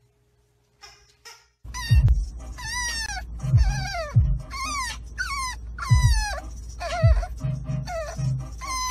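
French bulldog puppy whining in a car, a string of high cries that each fall in pitch, over background music with a heavy low beat. It starts after about a second and a half of near silence.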